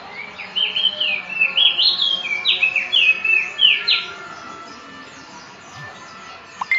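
Caged prenjak songbird singing a fast, loud string of chirping notes that jump up and down in pitch for about three and a half seconds, then a single short call near the end.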